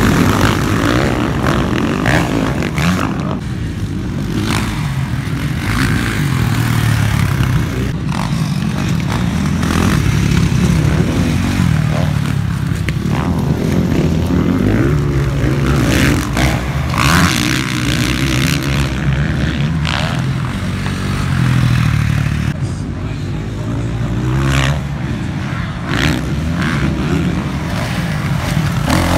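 Motocross dirt bike engines racing past, repeatedly revving up and dropping back as the riders accelerate, shift and jump.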